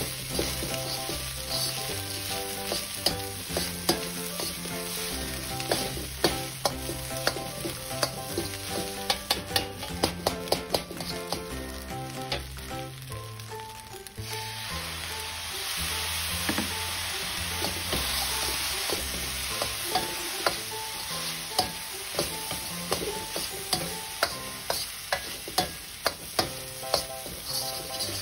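Fried rice sizzling in a hot wok, with a metal ladle repeatedly scraping and clacking against the pan as it is stir-fried. About halfway through, the sizzle turns louder and hissier as soy sauce hits the hot wok. Background music plays underneath.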